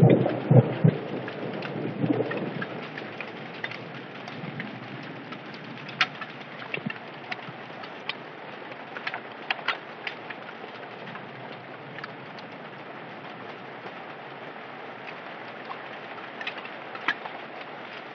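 Hailstorm: steady rain hiss with scattered sharp ticks of hailstones striking hard surfaces. A low rumble dies away over the first couple of seconds.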